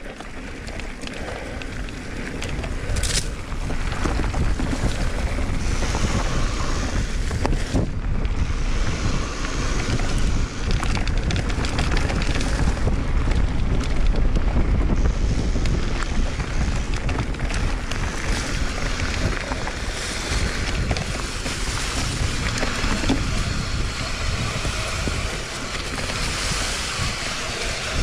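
Wind buffeting the microphone during a mountain-bike ride: a steady low rumble that gets louder about three seconds in, with scattered knocks.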